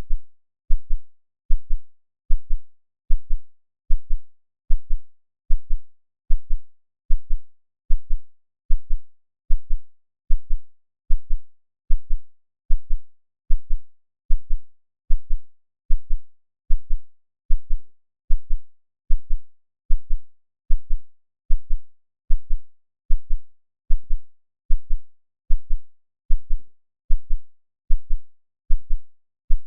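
Heartbeat sound: deep, low thumps in a perfectly steady rhythm, a little more than one beat a second, with silence between beats.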